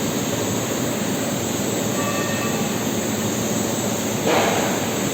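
Hydraulic cylindrical grinder running with a steady, noisy hiss, with a louder rush of grinding noise about four seconds in.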